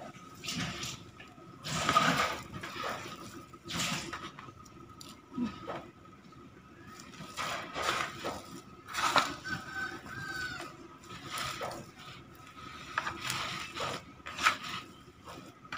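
Hands kneading and squeezing boiled cassava mixed with grated coconut in a plastic bowl: irregular squishing and rustling strokes, with the hand now and then scraping the bowl. A faint steady high whine runs underneath.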